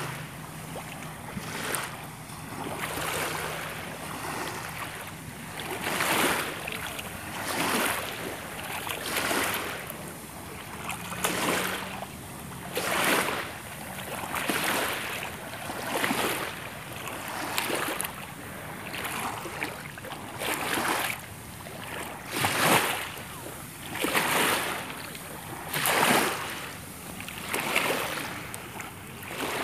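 Small waves lapping and washing in, a surge of splashing water every second or two.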